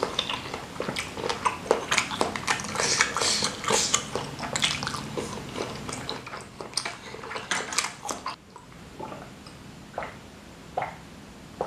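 Close-miked wet chewing and lip smacking of a mouthful of meatball, dense for about eight seconds, then a few separate gulps as water is drunk from a glass.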